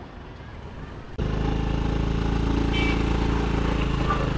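Motorbike and street traffic noise heard while riding: a steady engine hum and rumble that jumps abruptly to a much louder level about a second in, then holds steady.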